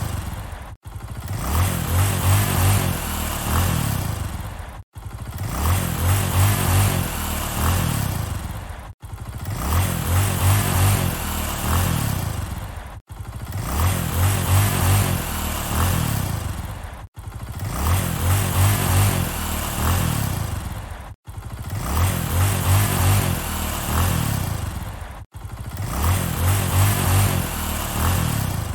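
Motorcycle engine swelling up in pitch and loudness and falling back again, the same few-second sound repeated about every four seconds with a sharp, brief cut between repeats.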